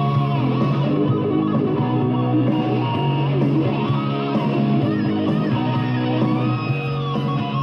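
Rock music with guitar and singing, played from a cassette through a car's four newly fitted 4-inch speakers, all four playing at once.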